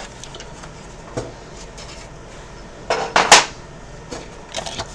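Hard plastic clicks and clatter of an Xbox One S console case being popped apart, with a faint click about a second in, a cluster of sharp knocks about three seconds in, and a few lighter clicks near the end.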